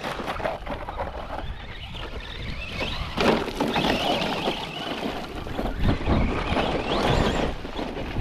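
Radio-controlled truck's motor revving up and down in bursts, with wind noise on the microphone.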